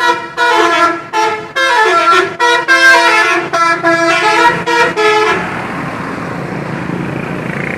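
Bus 'telolet' horn, a multi-tone musical air horn, playing a quick tune of short notes that change pitch. It stops about five seconds in, leaving a steady background noise.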